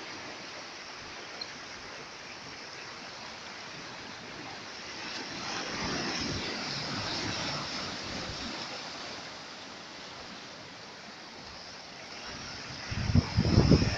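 Sea water washing against the rocks, a steady rushing that swells about five seconds in and eases again. Near the end a loud, low, uneven rumble comes in over it.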